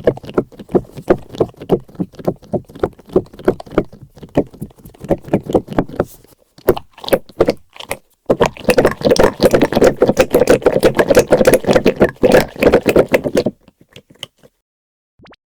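Squishy pop-out squeeze toy being squeezed and released over and over, a quick run of squishy clicks and pops about three a second. After a short pause about six seconds in, the squeezing picks up into a faster, denser run, then stops a couple of seconds before the end.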